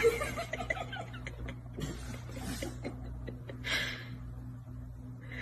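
Upright piano notes, pressed by a dog, ringing and fading away. After that it is quiet apart from a low hum and a few brief soft rustles.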